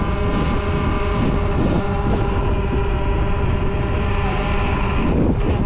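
A scooter running steadily along, with a constant whine of several even tones over a heavy rumble of wind and road noise on the microphone.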